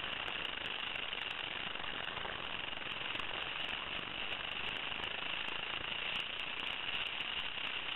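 Go-kart engine running, picked up by a helmet camera as a steady, fairly quiet, rough-textured drone.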